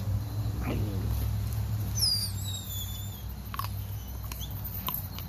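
Puppies tugging at and feeding on a rabbit carcass, with a short cry under a second in and high, falling squeaks about two seconds in, over a steady low rumble.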